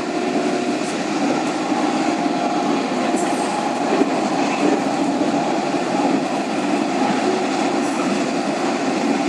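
Luas light-rail tram running at speed, heard from inside the car: a steady rumble of wheels on rails with a faint, steady hum.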